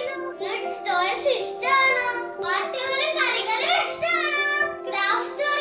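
A child singing a melody over backing music, with a steady held note running underneath.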